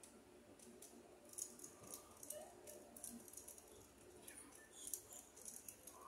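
Faint, quick metallic clicks and scrapes from a screwdriver turning the terminal screws of a new wall receptacle as its wires are handled, in irregular clusters.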